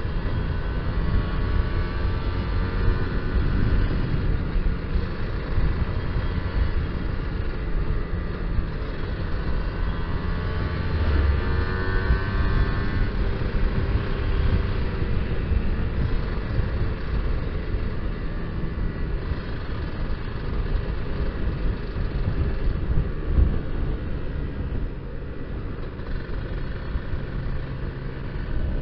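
Kawasaki Ninja R single-cylinder two-stroke engine under way, its pitch rising and falling through the revs, with heavy wind rumble on the microphone. The carburettor is set rich ('basah').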